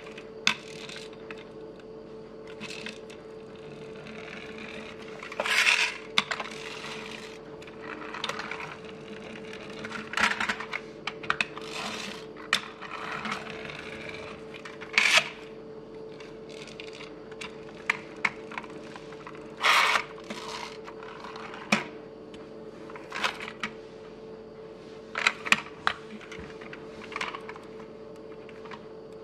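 Toy model cars handled and rolled across a tabletop: irregular clicks and taps, with short scraping bursts of small wheels rolling, over a steady faint hum.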